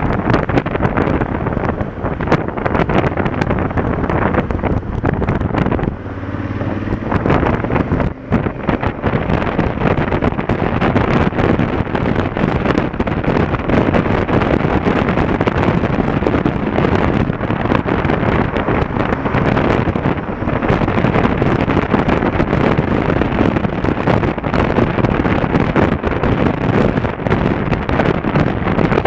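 Riding Honda Africa Twin CRF1000L at road speed, with heavy wind rush buffeting the microphone over its parallel-twin engine and the surrounding traffic. The wind noise dips briefly about six seconds in.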